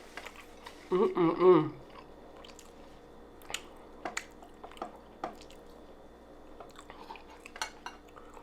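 A person chewing food close to the microphone, with scattered wet smacking mouth clicks. There is a short vocal sound about a second in.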